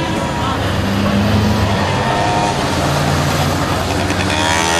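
Street traffic: vehicle engines running steadily, with a motor scooter passing close and its engine rising in pitch near the end.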